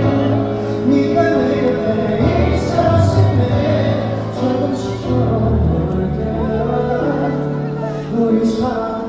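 Live band music through a concert PA: sustained chords with voices singing.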